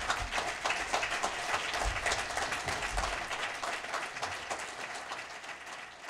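Audience applauding: a dense patter of many hands clapping, thinning and fading away near the end.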